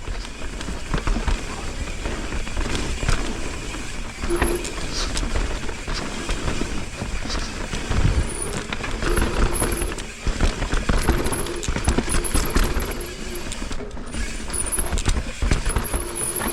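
Mountain bike riding down a dirt trail: tyres on dirt and the bike rattling and knocking over bumps, with a low wind rumble on the microphone.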